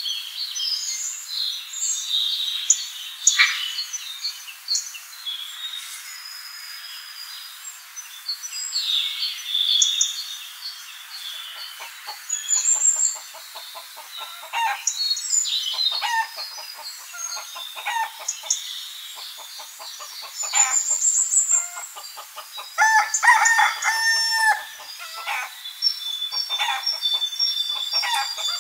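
Hens clucking on and off, with a denser run of drawn-out calls a little after two-thirds of the way through. Brief high bird chirps come twice.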